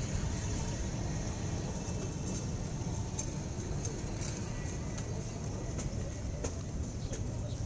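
Steady low rumble of street background noise, with a few faint clicks.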